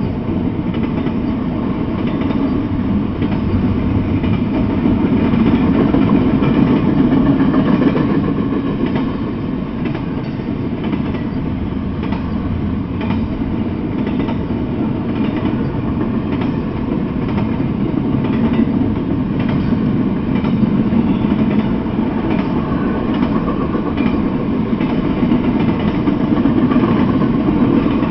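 Intermodal freight train of double-stack container well cars rolling past: a steady rumble of steel wheels on rail with light clicking, swelling and easing a few times as the cars go by.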